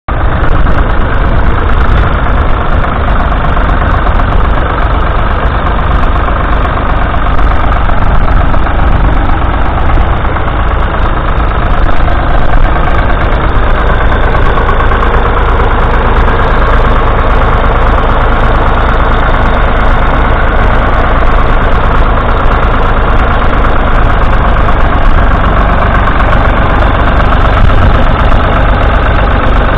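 Ford Dexta 2000 tractor's diesel engine running steadily under load while pulling a two-furrow mounted plough through the soil.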